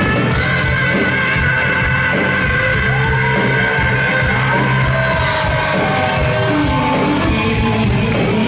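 Live hard rock band playing loud with electric guitars and drums, the male lead singer yelling a high note that he holds for several seconds.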